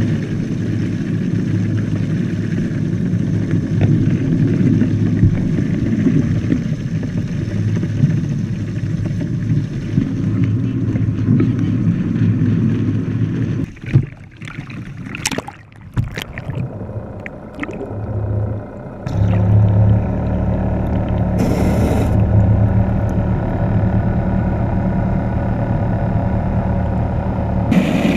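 Steady low rumble heard through an action camera's waterproof housing, broken about halfway by loud splashing as a student-built ROV plunges into the water. Then a muffled, steady low motor hum underwater as the ROV's propeller turns.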